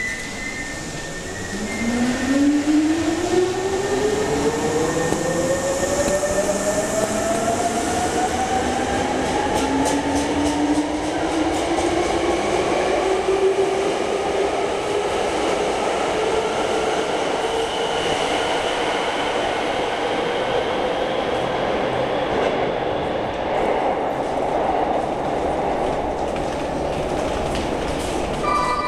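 Hankyu 3300 series electric train pulling out of an underground station. Its motors whine steadily upward in pitch as it accelerates, and wheels click over the rail joints as the cars go by.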